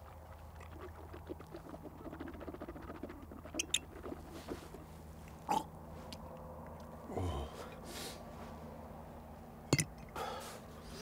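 Rustling of a sleeping bag and the handling of a glass liquor bottle, with a man's low groan falling in pitch about seven seconds in. Near the end there is a sharp clink as the bottle is set down on stony ground.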